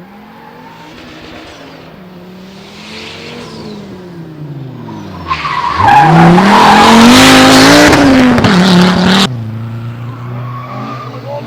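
Rally car engine revving up and down through a stage, then one car passing close and much louder for about four seconds, its engine note rising as it goes by, before the sound cuts off suddenly.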